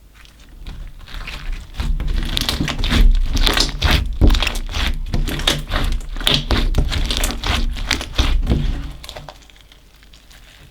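Slime mixed with small coloured beads being squeezed and kneaded by hand, giving a quick run of wet clicks, pops and crackles. It builds up about half a second in and dies away about a second before the end.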